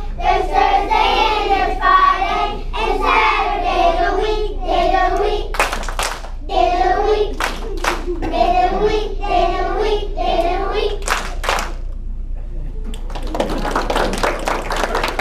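A group of young children singing a days-of-the-week song together, with a few pairs of sharp claps in the middle. The song ends about twelve seconds in, and the audience breaks into applause.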